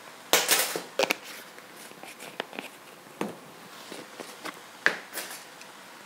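A small metal measuring spoon clicking and scraping against spice jars as dried thyme and sage are measured out, with a few sharp clicks scattered through and two short rustling bursts, the loudest about half a second in.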